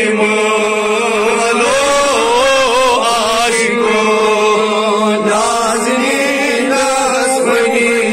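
Male voices chanting a Salaam, a devotional salutation to the Prophet. The lead voice carries a wavering, ornamented melody over a steady held note.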